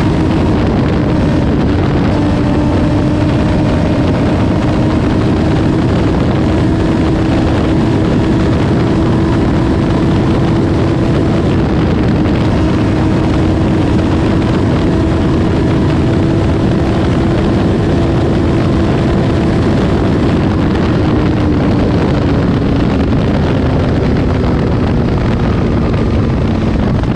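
2014 Kawasaki ZX-14R inline-four with an Akrapovic full exhaust running hard in top gear at about 270 km/h, its steady drone creeping up in pitch, then falling away about 21 seconds in as the bike slows. Loud wind rush on the microphone over it.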